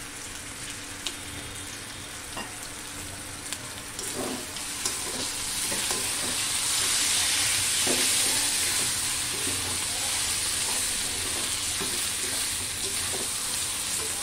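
Marinated mutton sizzling in hot oil with fried onions in a kadai as it is stirred, a metal spatula scraping and knocking against the pan now and then. The sizzle swells about five seconds in and stays loud.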